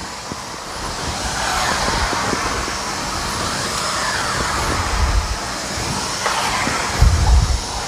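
Hoover Steam Complete Pet steam mop running on a tile floor: a steady hiss with the pad swishing over the tiles in repeated strokes, and a couple of low thuds, one about five seconds in and a louder one near the end.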